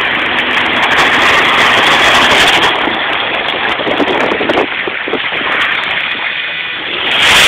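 Vehicle driving across rough grassland, a steady rushing of wind and rumble through an open window. It eases off a little for a couple of seconds after the middle, then picks up again at the very end.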